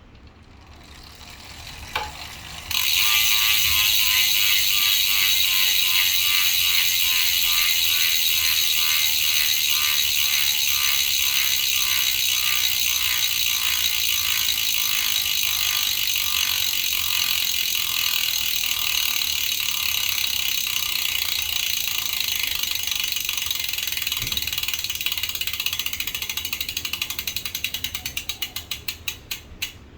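Freehub of a Farsports Ventoux S4 Evo rear wheel freewheeling, its pawls giving a loud, fast ratcheting buzz as the wheel spins. Near the end the clicks slow down into separate ticks as the wheel coasts to a stop.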